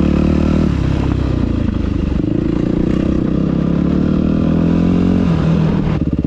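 2005 Yamaha YZ250F's single-cylinder four-stroke engine running, its note shifting about a second in, then climbing slowly for a few seconds before dropping back to a steady run near the end.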